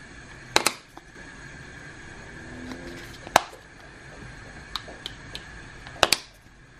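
Sharp clicks and knocks of spice jars and shaker lids being handled: a loud double click early on, a single one near the middle and another double one near the end, with a few lighter ticks between, over a steady faint hum.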